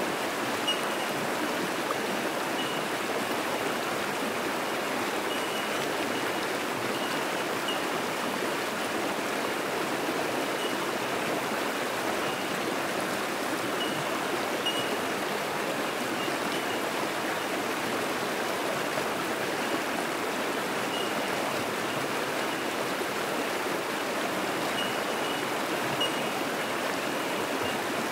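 Fast-flowing creek rushing steadily over rocks and through whitewater. Faint, short, high single notes of bell miners (bellbirds) sound now and then over the rush.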